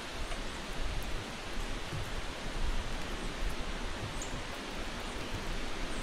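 A steady rushing hiss with a faint, short high bird chirp about four seconds in.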